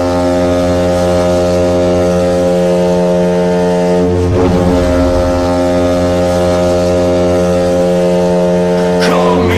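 Ice hockey goal horn sounding one long, steady blast with a brief break about four seconds in; the horn is a recreated (fake) one rather than the arena's own. It stops just before the end, as a rock goal song kicks in.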